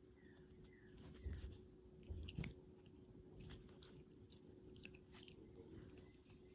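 Faint scuffling and crackling as a Sphynx cat paws and bites at a ribbon on a fleece blanket, with a few short clicks and two soft knocks in the first half.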